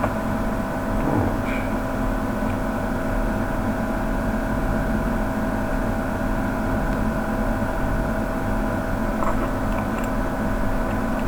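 Steady machine hum made of several steady tones, unchanging throughout, with a faint tap or two.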